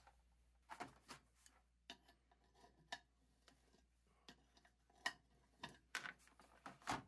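Faint, irregular metallic clicks and taps as an adjustable wrench works a fitting on a cast iron Christmas tree stand. The loudest clicks come about five seconds in and just before the end.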